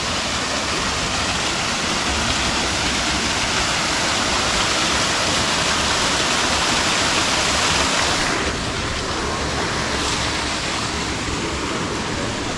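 Steady rush of falling water from a small waterfall, easing slightly about eight and a half seconds in.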